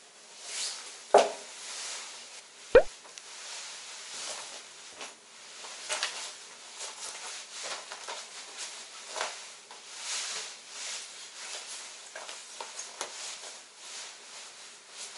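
Rustling and swishing of a long nylon puffer coat and a scarf being put on and wrapped, with two sharp knocks, the loudest sounds, about one and three seconds in.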